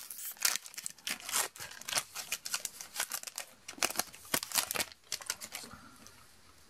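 Foil wrapper of a Magic: The Gathering booster pack being torn open and crinkled in the hands, a dense run of irregular crackles that dies away near the end.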